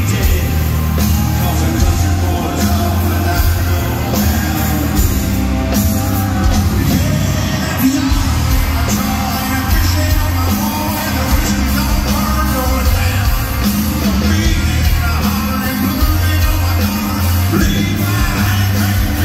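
Live country band with lead vocals: electric guitars, keyboards, drums and a steady bass line, heard loud and reverberant in an arena.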